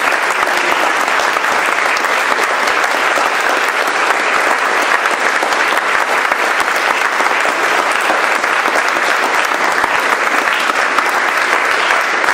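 Audience applauding, sustained and steady, in response to the end of an acceptance speech.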